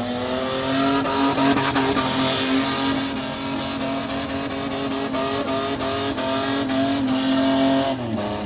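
Toyota Land Cruiser pickup's engine held at steady high revs while its rear tyres spin in a smoky burnout donut. The revs drop away near the end.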